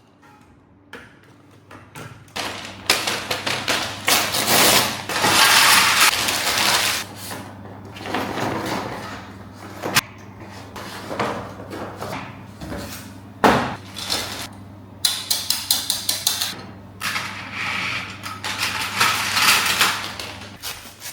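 Lego set packaging and parts being handled: irregular bursts of rustling and crinkling with a few sharp clicks.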